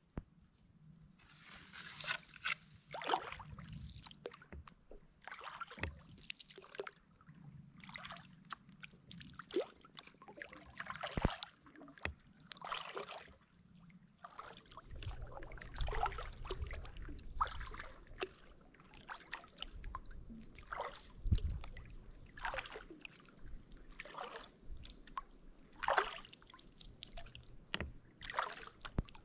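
Kayak paddle strokes: the double-bladed paddle dipping into calm water with a splash and drip every second or so.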